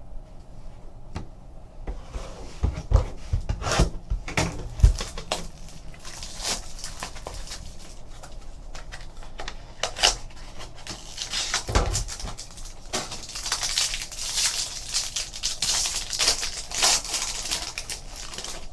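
Trading cards and packs being handled on a table: an irregular run of crinkles, rustles and light clicks, with a few dull knocks about three to five seconds in and again about twelve seconds in.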